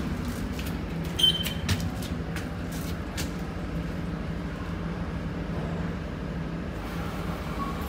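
Steady low machine hum inside a lift car, with a brief high beep and a few sharp clicks a little over a second in.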